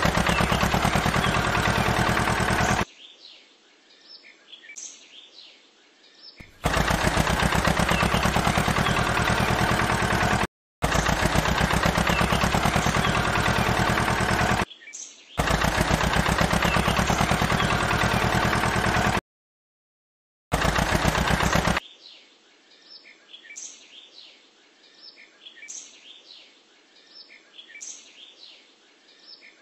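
A loud, very rapid mechanical rattle from a small machine, run in bursts of a few seconds that start and stop abruptly. Birds chirp in the quieter gaps between bursts and after the last one.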